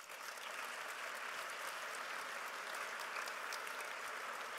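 Audience applauding: many hands clapping at once, breaking out at the start and then holding steady.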